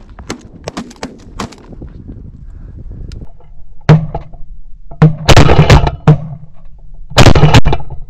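Volley of shotgun blasts from several hunters shooting at specklebelly geese. A single shot comes about four seconds in, then shots overlap in quick succession around five to six seconds, and again near the end.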